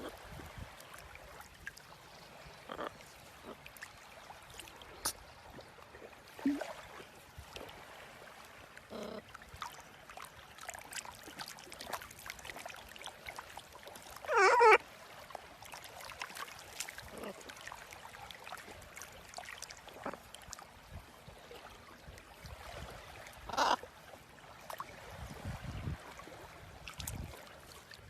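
Short animal calls over a steady hissing background; the loudest, a brief pitched cry with several overtones, comes about halfway through, and a shorter one comes near the end.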